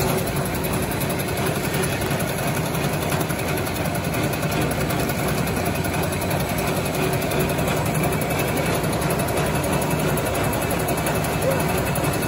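Snack production line machinery running steadily: a constant mechanical din with a low hum that does not change.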